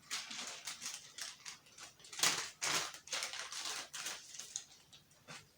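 Rustling and handling noises: a run of irregular, scratchy bursts, loudest a little past two seconds in.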